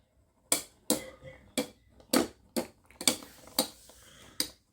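Two Metal Fight Beyblade spinning tops, Lightning L-Drago and Fang Leone, clashing in a battle stadium: a string of sharp, irregular clicks, about two a second, beginning about half a second in.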